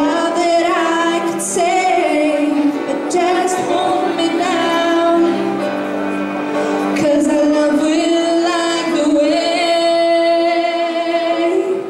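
A girl singing a slow song into a handheld microphone, amplified through the hall's PA with musical accompaniment; she ends on a long held note that stops shortly before the end.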